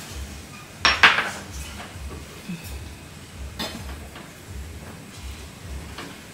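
Metal kitchen utensils and cookware clinking: a sharp ringing clink about a second in, another midway, and a fainter one near the end.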